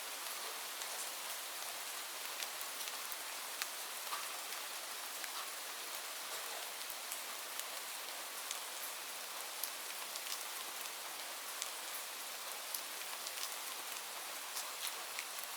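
Steady rain falling, a continuous hiss with many separate drops tapping sharply on a surface.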